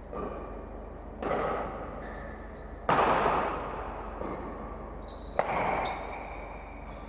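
Four sudden thumps at uneven intervals, each followed by a ringing, echoing tail; the loudest comes about three seconds in. A steady low hum sits underneath.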